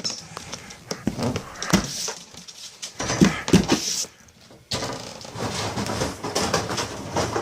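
Pet dogs playing, making short pitched vocal sounds a little over three seconds in, amid scuffling and clicking noises.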